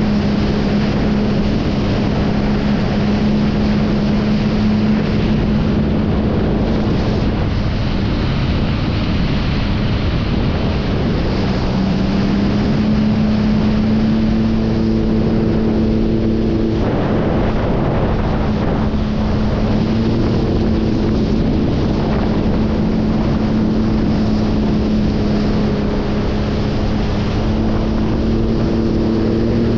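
Sea-Doo GTI personal watercraft's engine running at a steady throttle, a constant hum that rises slightly in pitch about twelve seconds in, over the rush of water and wind on the microphone.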